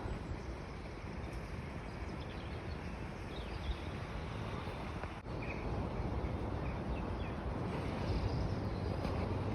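Outdoor background noise with a steady, uneven low rumble and a few faint, short bird chirps.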